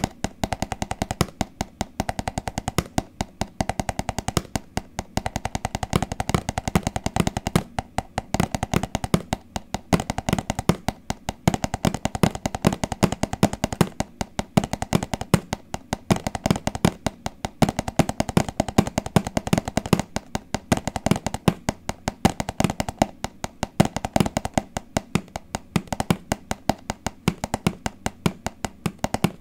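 Fast, rhythmic tapping on a hard object: many sharp taps a second, in steady runs broken by a few brief pauses.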